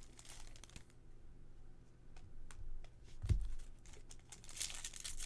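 Baseball cards being handled on a table: scattered light clicks and taps, a dull thump about three seconds in, and a short rustle near the end.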